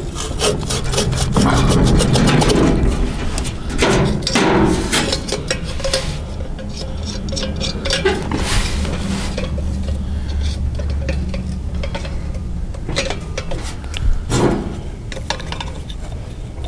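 New muffler being twisted and pushed down onto a Farmall M's exhaust stack, then its clamp worked tight: irregular spurts of metal scraping and clinking over a low steady rumble.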